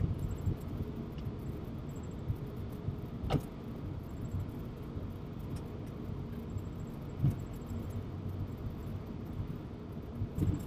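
Flight deck noise of an Airbus A380 taxiing slowly: a steady low rumble with a faint hum, broken by one sharp click about a third of the way in.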